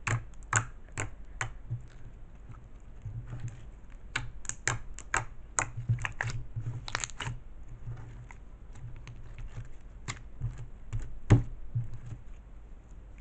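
Fingers poking and squishing slime, making a run of small, irregular clicks and pops, with one louder pop near the end.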